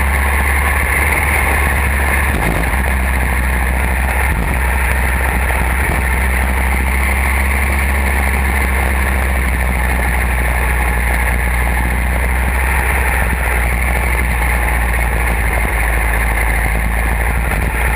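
Go-kart engine running steadily at racing speed, heard onboard the kart, with a strong steady low rumble.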